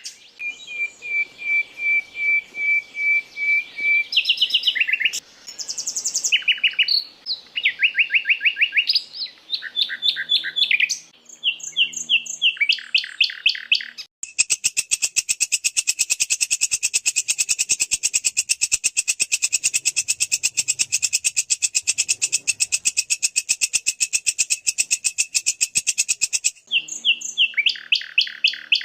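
Edited mix of recorded songbird calls used for masteran training: a run of clear repeated whistled notes, then quick chirping phrases, then a long, very fast trill lasting about twelve seconds, after which the chirping phrases return.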